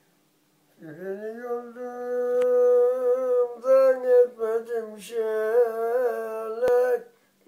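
A solo voice singing a slow, wordless opening line of a Turkish folk lament (ağıt), starting about a second in, with long held notes and small ornamental turns.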